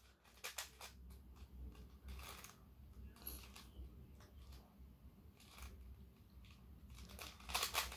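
Faint, irregular plastic clicking of a Rubik's cube being turned by hand, the clicks coming thicker and louder near the end.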